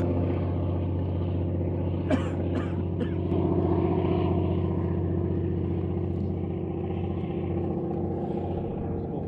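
An engine running at a steady speed: an even low hum, with a few light clicks about two to three seconds in.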